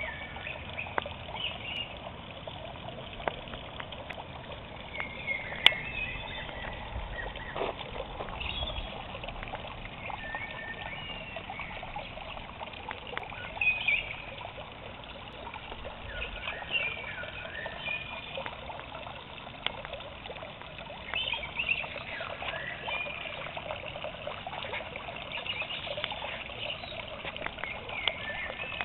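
Small pond fountain splashing and trickling steadily into the water, with brief high chirps now and then.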